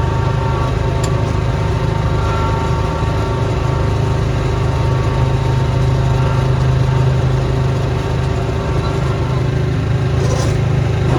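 Small gasoline engine of a snow-clearing machine running steadily at a constant speed while snowblowing.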